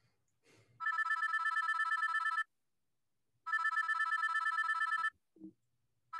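A phone ringing with a fast-warbling electronic trill. There are two rings about a second and a half long, a second apart, and a third begins just at the end.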